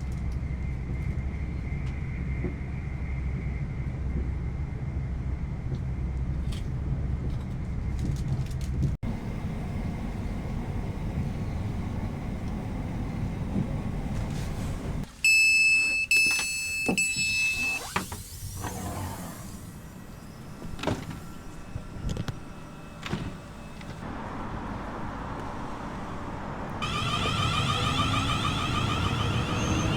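Passenger train running, heard from inside the carriage as a steady low hum. About halfway through, a high steady tone sounds for about three seconds, followed by scattered knocks and a louder whine near the end.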